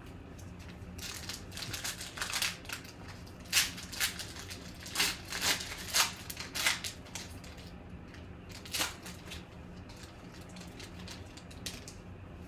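Trading-card packaging being torn open and crinkled: a run of short rustling tears and crackles, with one more a few seconds after the rest.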